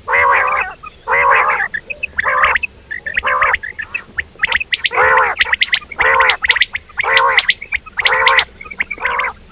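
Quail calling over and over, one short call about every second. Thinner, sharp high chirps come in around the middle.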